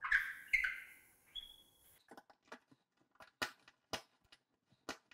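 A large lag screw with a washer being turned by hand with a Phillips screwdriver through a steel TV wall bracket into a wall stud, going in stiffly. A few short squeaks come in the first two seconds, then irregular sharp clicks, two or three a second, as the driver turns and grips the screw head.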